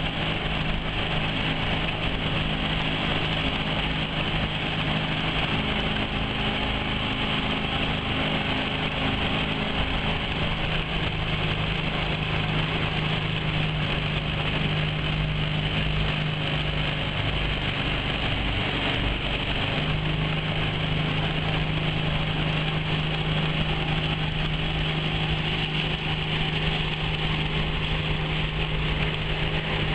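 Homemade bawad113 mud motor (swamp outboard) running steadily under way, with small shifts in its engine note about ten and twenty seconds in.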